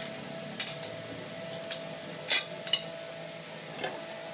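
Light metal clinks and knocks, about six scattered sharp strikes, the loudest about two and a half seconds in, over a faint steady hum.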